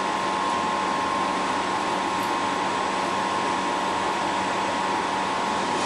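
Steady machine drone with a constant hum, even in level throughout, like a fan or air handling running nonstop.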